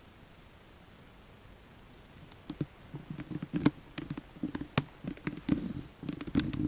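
Faint hiss, then from about two and a half seconds in an irregular run of sharp clicks and light taps, many with a soft knock under them.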